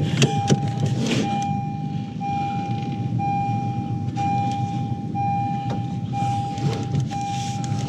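Honda Civic Si's warning chime beeping steadily, one long beep about every second, with the driver's door open and the key in, over a low steady rumble and a few light clicks.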